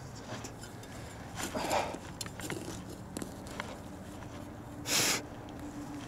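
Digging in forest soil with a small spade: scattered scrapes and clicks of the blade in earth, with one louder short scrape about five seconds in.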